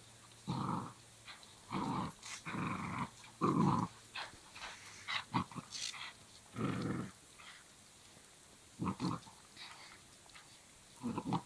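Dogs growling in play during a tug-of-war over a rope toy, a Belgian Malinois puppy and a German Shepherd, in about seven short bouts with light clicks between.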